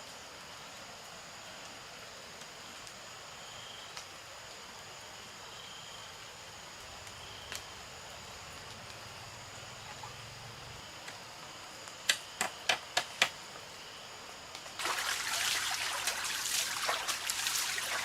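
Faint steady forest background with a thin high insect buzz; about twelve seconds in, five sharp knocks in quick succession, then near the end a few seconds of loud, dense crackling noise.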